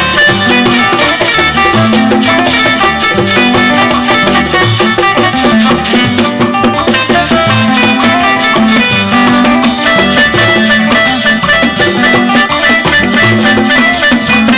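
A live band playing an upbeat dance groove during a sound check, with drums and a walking bass line under higher instruments.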